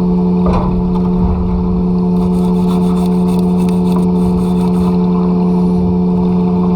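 A machine hum at one constant low pitch, loud and steady, with a short rush of noise about half a second in.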